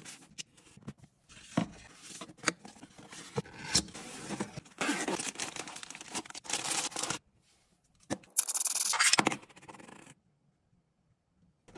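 Unboxing handling noise: a cardboard box being opened with scraping and tapping, then a camera being pulled out of a padded pouch and a clear plastic bag, with a louder burst of plastic rustling a little past eight seconds in.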